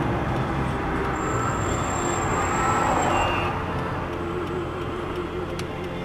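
Steady car driving noise, a road and engine rumble, with a thin high tone for about two seconds in the middle.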